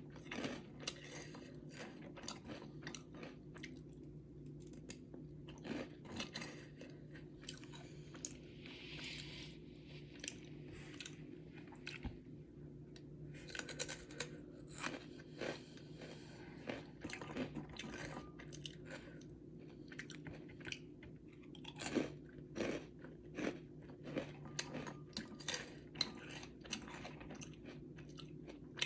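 Close-up sounds of a person eating Samyang carbonara instant noodles: chewing with many short wet mouth clicks and smacks, over a steady low hum.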